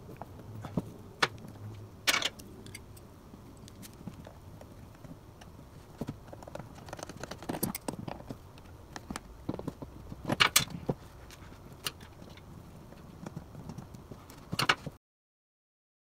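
Scattered clicks and knocks of hand tools and small metal parts being handled on a workbench: pliers working a hose clamp on the fuel outlet fitting of a plastic diesel heater fuel tank.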